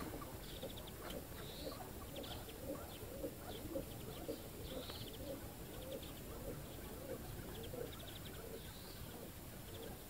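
Faint birds calling: short high trills and chirps repeating every second or so, over lower wavering notes.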